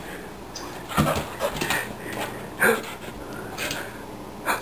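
Young Soft Coated Wheaten Terrier whimpering in several short sounds, roughly one a second, some dropping in pitch.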